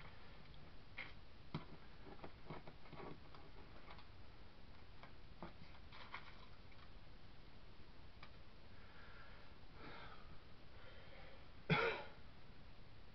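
Faint handling noises of card and paper on a table: scattered small knocks and rustles, with one short, louder noise near the end.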